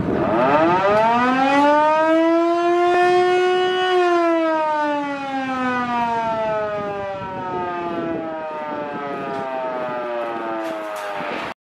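A siren giving one long wail: it winds up in pitch over about four seconds, then slowly winds down and cuts off just before the end.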